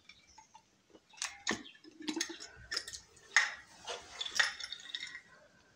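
Glass jar with a blue flip-top lid and wire clasp being closed and handled: a series of sharp clicks and clinks, with roasted groundnuts and corn shifting inside.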